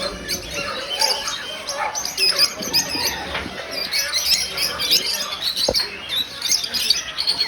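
Many caged birds calling at once: a dense, overlapping chorus of short high chirps and squawks.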